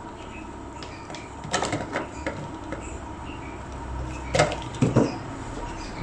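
Blue-handled wire-cutting pliers clicking and snipping as they cut and work electrical wire, with two louder knocks on the table near the end.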